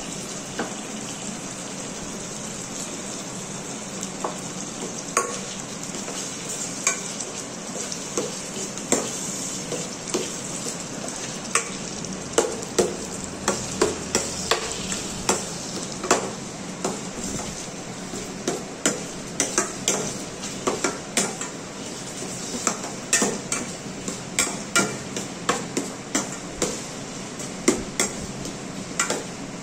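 Chopped onion and tomato frying in oil in a stainless steel pan with a steady sizzle, while a steel ladle stirs and clinks against the pan many times, more often in the second half.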